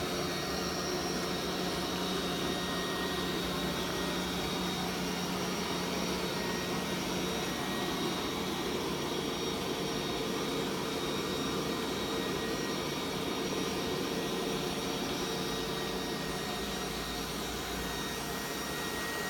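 Vorwerk Kobold VR200 robot vacuum cleaner running: a steady whir with a thin, high, constant whine over it.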